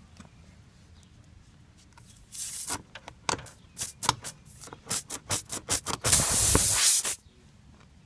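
A tire-plug reamer tool being forced in and out of a small puncture in a mower's front tire, rasping and scraping in short strokes about twice a second, which opens the hole up for the plug. Near the end comes a loud hiss lasting about a second.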